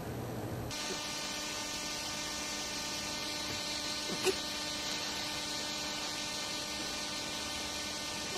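Steady electrical hum made of many fixed tones, starting abruptly just under a second in, with one brief squeak about four seconds in.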